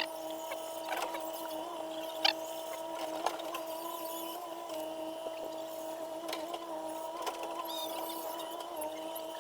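A steady mechanical hum holding one pitch, with a few sharp clicks or taps: one at the start, others about two and three seconds in.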